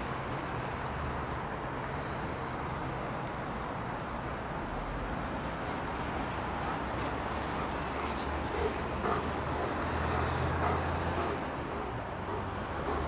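Steady road traffic noise, with a low vehicle rumble that swells for a few seconds past the middle.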